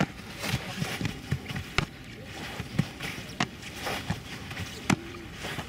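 A football smacking into a goalkeeper's gloves as he catches throws, several sharp smacks about a second apart, with softer thuds of his body moving on the artificial turf between them.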